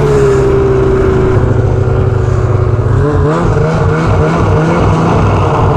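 Snowmobile engine running under way, loud and steady at first, then its pitch wavers up and down from about halfway in as the revs change.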